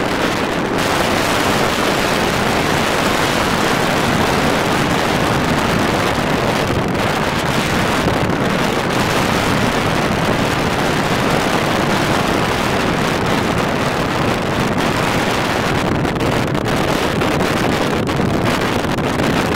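Strong wind blowing across the microphone: a loud, steady rush of noise with no let-up.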